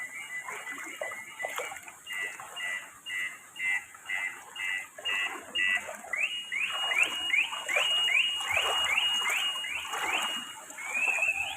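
Electronic alarm sounding a two-note tone that changes pattern: steady at first, then fast pulsed beeps, then a run of rising whoops about two a second, then a warbling tone near the end.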